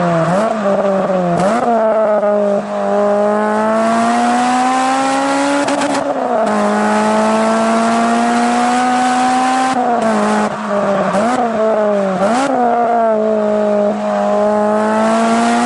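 A racing car's engine at high revs, pulling through the gears. Its pitch climbs steadily in each gear and drops sharply at the shifts about six and ten seconds in, with quick throttle blips between about ten and twelve seconds, then climbs again.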